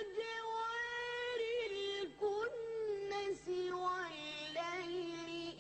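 A child's high voice reciting the Quran in a melodic chant, holding long drawn-out notes that step down in pitch, with short breaks for breath between phrases.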